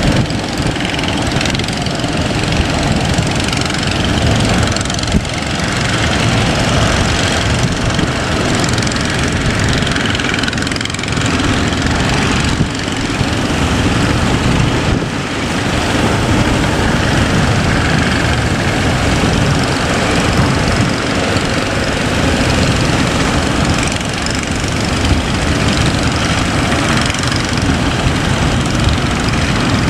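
Boat engine running steadily under way, over a dense, even rush of wind and water noise.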